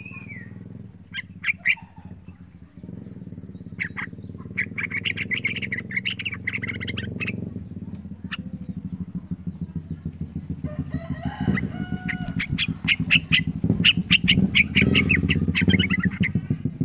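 Yellow-vented bulbul singing: a few separate sharp notes, then runs of rapid chattering notes, densest in the second half. A steady low drone runs underneath and grows louder toward the end.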